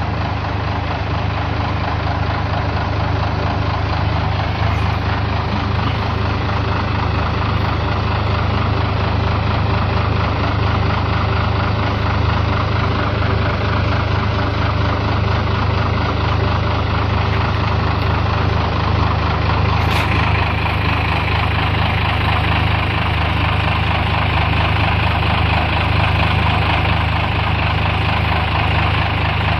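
A vehicle engine idling steadily while being warmed up.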